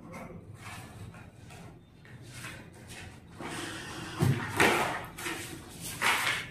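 Paper rustling as the pages of a thick spiral-bound file are flipped over by hand, with louder rustles about four and a half and six seconds in.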